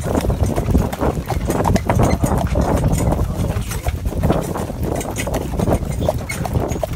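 Hooves of a Gelderlander horse pulling a driving carriage, clip-clopping in a continuous run of knocks over a steady low rumble.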